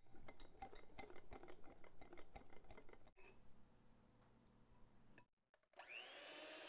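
Wire whisk beating batter in a glass bowl, with rapid clicks of the wires against the glass for about three seconds. Near the end an electric hand mixer starts in egg whites: its whine rises quickly in pitch and then holds steady.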